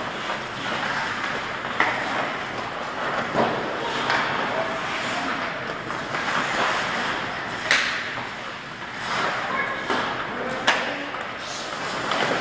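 Live ice hockey play: skates scraping and carving the ice under a steady rink din, with sharp cracks of sticks and puck about four times.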